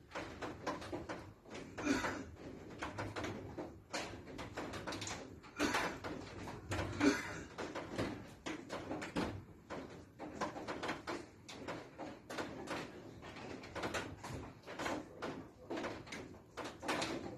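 Muffled noises from a neighbouring flat: irregular knocks and thumps, with a few louder bursts scattered through.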